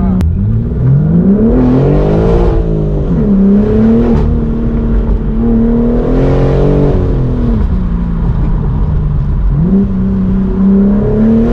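BMW M4 G82's 3.0-litre twin-turbo inline-six running through a full titanium valved cat-back exhaust, with the revs climbing and falling several times as the car is driven.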